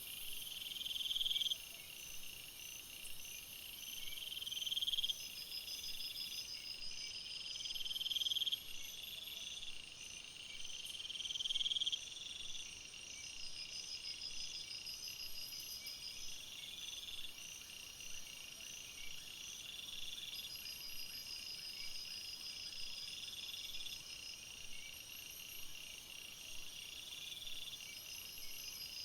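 Jungle ambience: a dense chorus of high-pitched insects, with several steady repeating trills layered together. For the first twelve seconds or so, a buzz swells up and cuts off sharply about every three and a half seconds.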